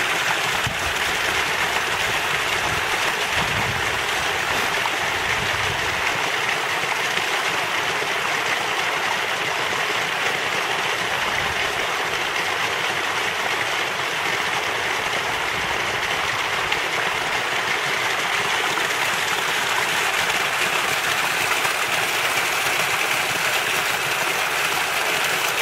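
Water running steadily in a stone-lined irrigation ditch (acequia), spilling down a small drop in the channel.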